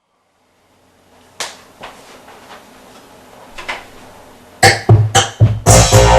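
Electronic beat played back from a Roland MV8800 production workstation. A few faint clicks come first, then sharp drum hits about four and a half seconds in, and the full beat with drums and synth kicks in near the end.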